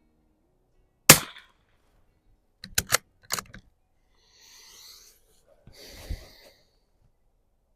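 A single shot from a Mossberg 144 .22 rimfire bolt-action target rifle about a second in, followed by a quick run of clicks as the bolt is worked, then quieter handling rustle.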